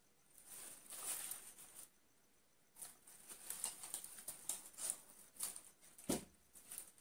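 Artificial flower stems and leaves rustling and clicking as they are handled and pushed into a vase, with one knock about six seconds in.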